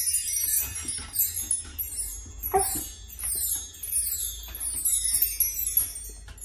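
Mark tree (hanging brass bar chimes) being brushed through by a dog's head. The chimes give repeated bright, shimmering runs, one roughly every two-thirds of a second.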